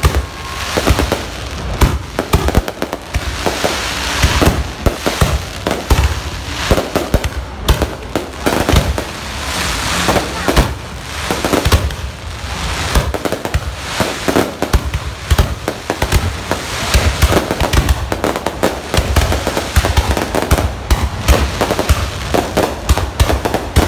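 Fireworks going off in a continuous barrage: many sharp bangs and booms in rapid, irregular succession over a constant crackle.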